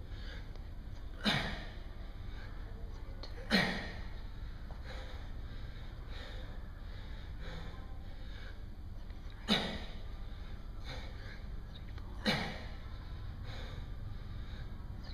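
A man's sharp, forceful breaths out, one with each push-up rep late in a long set: four short puffs, unevenly spaced, each fading quickly, over a steady low hum.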